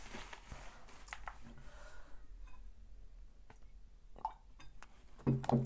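Quiet eating sounds: faint chopstick clicks and chewing. A paper tissue rustles in the first two seconds, and a short low vocal sound comes near the end.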